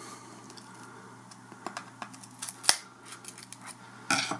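Hands handling a small cardboard box and a utility knife: a few light clicks, one sharp click a little past halfway, and a short scraping rustle near the end.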